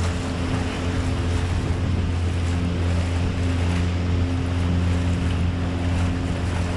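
Pontoon boat motor running with a steady low drone while the boat cruises, mixed with water rushing past the hull and wind on the microphone.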